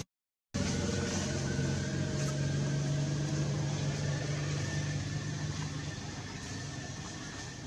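An engine running steadily with a low hum and a faint high whine above it. The hum eases about six seconds in. The sound cuts out completely for the first half-second.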